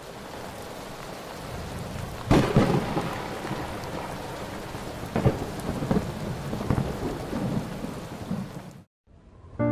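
Steady rain with thunder: a loud thunderclap about two seconds in and smaller claps around five and seven seconds. The rain fades in at the start and cuts off abruptly near the end.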